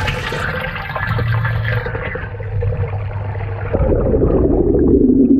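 Water rushing and pouring into a plastic cat-litter-box fish trap as it is pushed under, heard from a GoPro mounted inside the box. The rush becomes more muffled as the box goes under, and it grows louder and deeper for the last second and a half.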